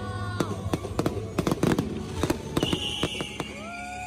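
Aerial fireworks bursting in a rapid, irregular run of bangs and crackles. Held tones sound over the bangs near the start and again over the last second or so.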